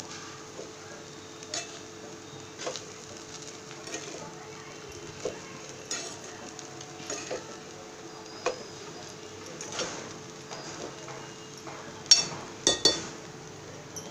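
A spatula stirring and scraping poha (flattened rice) in a frying pan on the stove, with irregular scrapes and clinks against the pan about once a second over a faint sizzle. A little after twelve seconds come three sharp clanks against the pan, the loudest sounds here.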